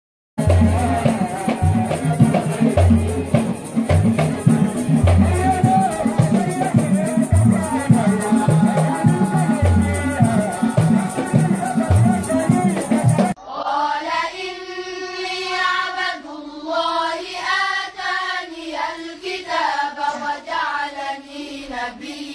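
Group singing to a steady drumbeat with shaking rattles, which cuts off abruptly about thirteen seconds in. A group of children's voices then sings together without accompaniment.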